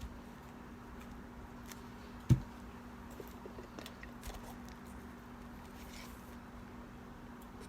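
Faint clicks and taps of slime-making things being handled, with one sharp thump a little over two seconds in, over a steady low hum.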